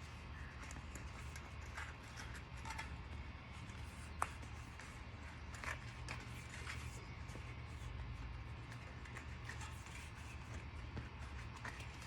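Hands working a bicycle inner tube into a clincher tire and rim: soft rubber rubbing with scattered light clicks and taps, over a low steady hum.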